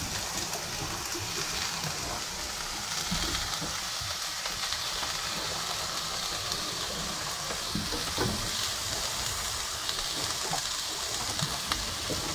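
Food frying in a pan: a steady sizzling hiss with a few faint clicks.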